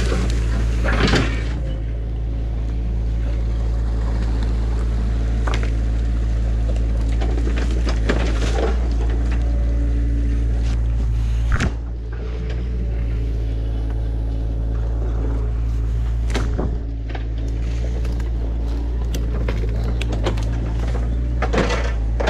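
An excavator's diesel engine running steadily, with irregular sharp cracks and knocks of sticks and brush scattered over it.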